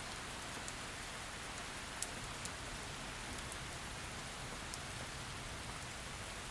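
Steady heavy rain falling, an even hiss with scattered sharp drops striking close by, one of them clearer about two seconds in.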